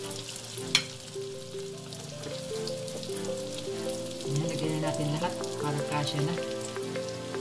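Lumpia shanghai spring rolls deep-frying in a pan of hot oil, the oil sizzling with scattered crackles as the rolls are added and turned with a slotted spatula. There is one sharp tap a little under a second in. Soft background music with a stepping melody plays alongside.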